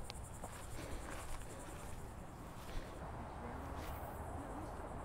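Insects trilling high and steady in a fast, even pulse, over a low rumble and a few faint clicks.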